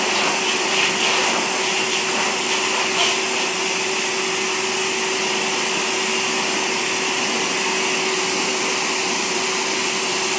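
Pet grooming blower dryer running steadily, a constant rush of air with a steady hum through it.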